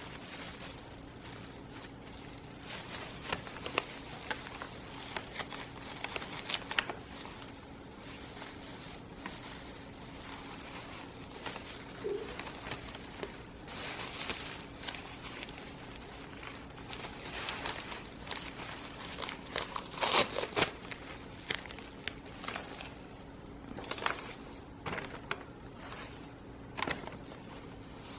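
Packaging being unwrapped by hand from a plant cutting: irregular crinkling and rustling with short tearing crackles, loudest about two-thirds of the way through.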